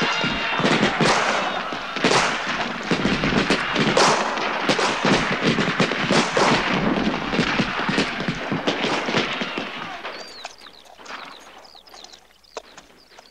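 Dense, rapid musket fire crackling in a battle din, many shots overlapping. It thins out and fades away after about ten seconds, leaving scattered faint shots.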